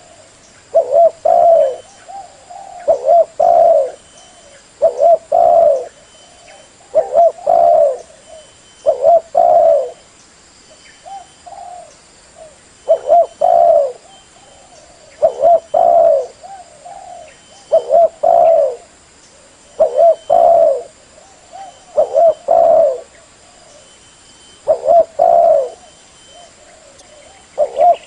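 Spotted dove cooing over and over, a short phrase of a few low coos about every two seconds, with fainter coos in between. It is a decoy call of the kind played to draw wild doves to a trap.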